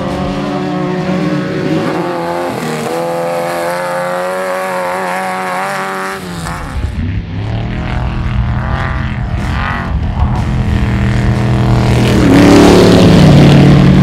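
Off-road race engines revving hard, pitch climbing and dropping through the gears, as desert race buggies and trophy trucks drive by. A louder engine close by peaks near the end.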